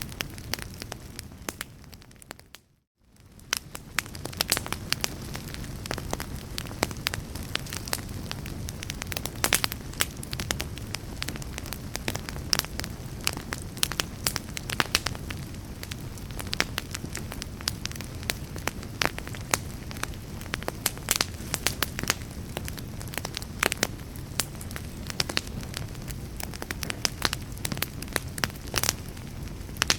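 Wood fire burning in a fireplace: a steady low rumble of flames with dense, irregular crackles and pops from the burning logs. About three seconds in, the sound briefly fades almost to silence and then comes back.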